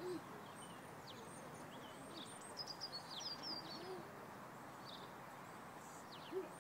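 Small birds chirping and twittering over a steady hiss of outdoor background noise, the chirps busiest around the middle. A brief low sound just before the end is the loudest moment.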